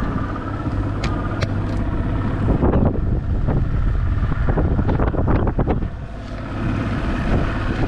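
An engine running steadily, with wind on the microphone and a few sharp knocks and rattles about a second in.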